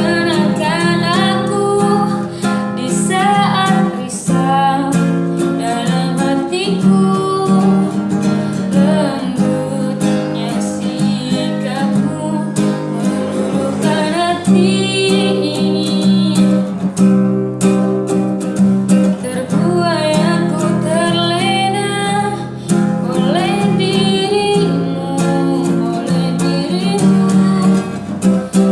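A song sung to acoustic guitar accompaniment: a singer's wavering melody over steadily strummed and plucked guitar chords.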